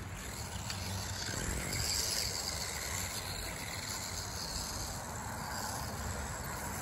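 Brushless-converted Feiyue FY01 RC buggy running across grass: a faint, steady whir of its electric motor and tyres under outdoor background noise.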